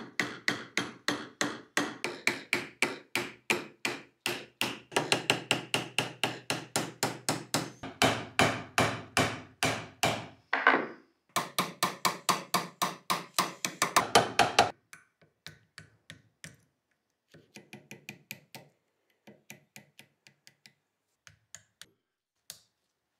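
A small hammer taps in quick, even strokes, about four or five a second, driving a wooden dowel set against a Luger P08 pistol clamped in a vise. After about 15 seconds the taps become sparse and faint.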